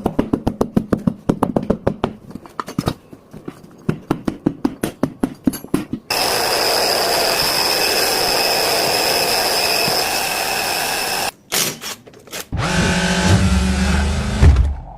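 Tire repair shop tools at work. First comes rapid clicking at about five clicks a second for several seconds. Then a steady loud hiss with a thin whistle runs for about five seconds, then stops. Near the end a low buzzing machine runs for about two seconds and cuts off.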